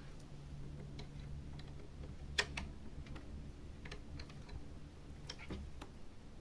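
Scattered faint clicks and taps from handling a small cable and its plastic parts, with one sharper click about two and a half seconds in, over a low steady hum.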